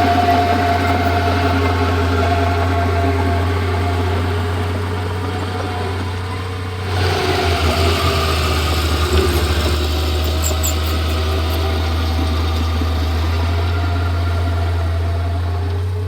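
Komatsu D31P bulldozer's diesel engine running steadily. About seven seconds in it grows louder, with a rapid pulsing for a couple of seconds, then settles back to a steady run.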